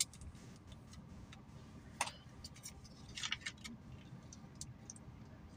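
Faint, scattered clicks and crinkles of takeout food packaging being handled, with a sharp click about two seconds in and a small flurry about a second later.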